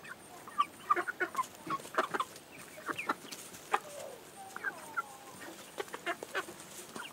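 A flock of young partridge Chantecler chickens peeping and clucking as they forage, with many short chirps in quick, scattered succession. A couple of longer falling calls come about halfway through.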